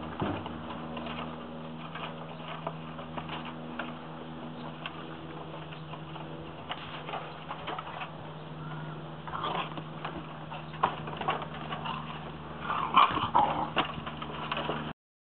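Vizsla puppies playing, with short whimpers and yips, loudest near the end, over scattered knocks of paws on a wobbling plywood board. A steady low hum runs underneath.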